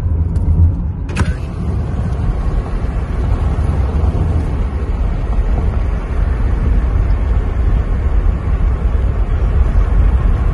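Car driving, heard from inside the cabin: steady road and engine rumble, with a single sharp click about a second in.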